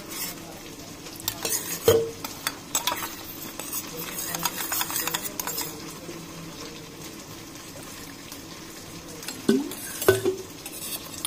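Steel spoon stirring cornflour and water into a slurry in a stainless steel bowl: irregular scraping and clinking against the metal, with a few sharper knocks that set the bowl briefly ringing, about two seconds in and again near the end.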